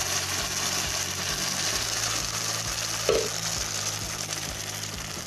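Blended fresh-corn batter sizzling in hot fat in a pan, a steady hiss as it starts to cook, with one short louder sound about three seconds in.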